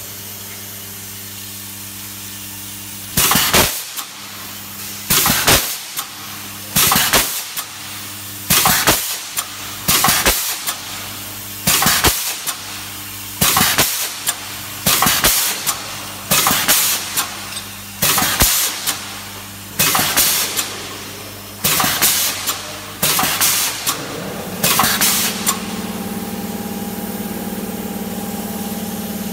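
Automatic plastic-eyelet clinching machine at work: a steady machine hum, broken by about fourteen sharp press strokes, one every one and a half to two seconds, each a short hissing clank as an eyelet is set. After the last stroke, about 25 seconds in, a steadier, higher hum runs on.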